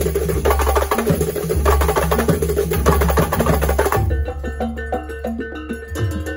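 Kuntulan percussion ensemble: many hand-struck frame drums (rebana/terbang) in a fast, dense interlocking rhythm over deep beats from large red barrel drums (jidor). About four seconds in, the drumming thins out and steady ringing pitched notes come through between the strokes.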